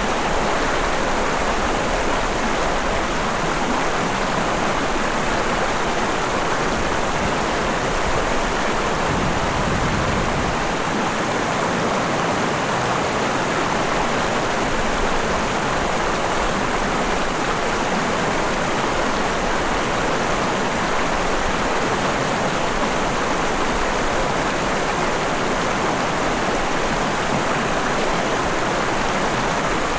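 A mountain stream's water running steadily over rocks, a continuous rushing that barely changes.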